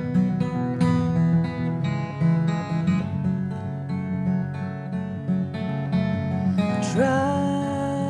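Acoustic guitar picking a run of notes in an instrumental break of a live song. About seven seconds in, a voice slides up into a long held note.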